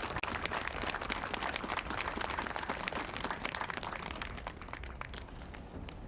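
Crowd applauding, a dense patter of many hands clapping that begins to die away about four seconds in.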